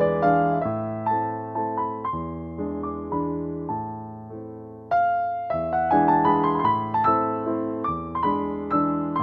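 Gentle background piano music: a slow melody of single struck notes that fade away, growing quieter until a new, louder phrase starts sharply about five seconds in.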